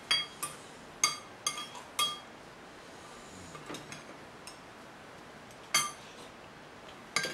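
Cutlery and glasses clinking against bowls and dishes at a dinner table: a quick run of bright, ringing clinks in the first two seconds, then a few more, the loudest near the end.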